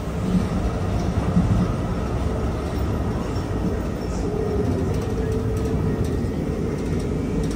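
Steady low rumble of a Brightline passenger train running on the track, heard from inside a moving passenger coach.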